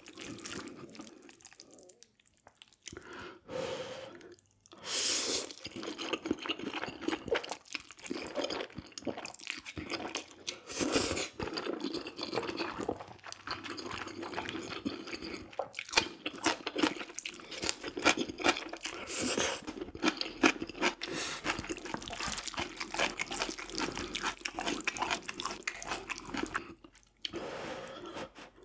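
Close-miked eating: wet, sticky chewing and mouth smacks with crunchy bites, a dense run of small clicks that thickens from about five seconds in.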